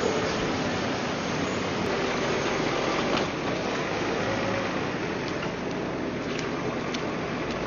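A farm tractor's engine running steadily under street noise, with a few light knocks about three seconds in and again near the end.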